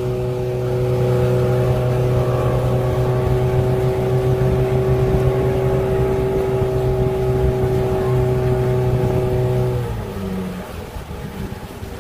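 Motorboat engine running at a steady speed with a constant drone over water and wind noise, then throttled back about ten seconds in, when it drops in level and the steady tone breaks off.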